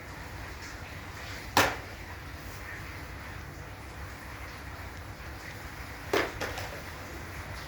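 Two sharp knocks, one about one and a half seconds in and one about six seconds in, the second followed by a smaller knock, over a steady low hum.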